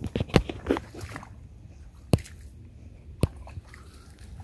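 Footsteps crunching and squelching through wet snow, slush and brush, with a quick run of crunches near the start and two single sharp cracks about two and three seconds in.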